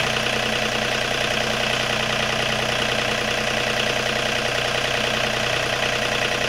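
John Deere 4210 compact tractor's diesel engine running steadily at an even pitch, driving the hydraulics for a homemade log-splitter ram.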